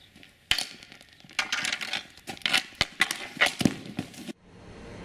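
Street hockey stick clacking and scraping on asphalt and striking a plastic hockeyball, a run of sharp clacks and scrapes that cuts off abruptly about four seconds in.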